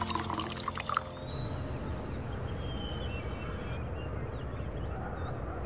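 White wine poured from a glass bottle into a stemmed wine glass, splashing and glugging for about a second. The pour then gives way to a steady background hiss with a few faint high chirps.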